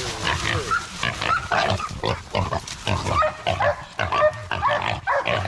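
A caught wild hog squealing and grunting in distress, in a rapid run of short calls.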